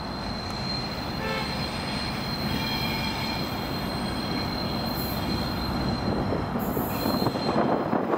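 Irish Rail 071 class diesel locomotive (EMD JT22CW, V12 two-stroke engine) rumbling as it approaches slowly round a curve, with a steady high-pitched squeal from the wheels against the rails. The rumble grows louder near the end as the locomotive draws close.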